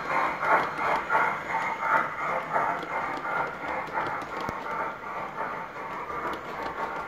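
Large-scale model passenger train rolling along its track: a rhythmic clatter from the wheels, about two beats a second, growing fainter as the train moves away.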